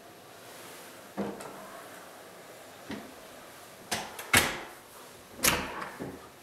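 Interior door being handled: a series of knocks and latch clicks, about six in all. The loudest two come about four and a half and five and a half seconds in, each with a short ring.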